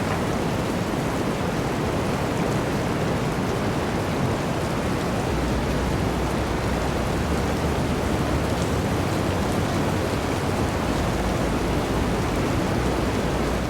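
Steady, even rush of falling water with a deep low rumble underneath.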